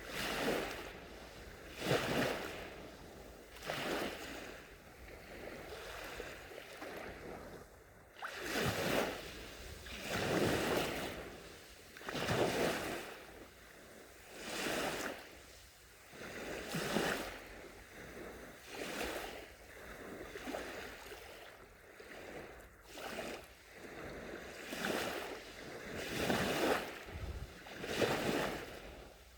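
Small sea waves lapping and breaking on a sandy shore, a soft wash swelling and fading about every two seconds.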